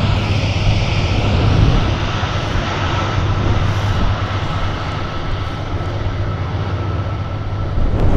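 Boeing 747-400 freighter's jet engines running, a steady rumble with a thin high whine held throughout.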